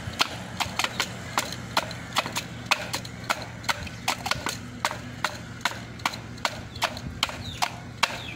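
Pestle pounding fruit in a tall mortar for rujak bebek: steady, even knocks about three a second.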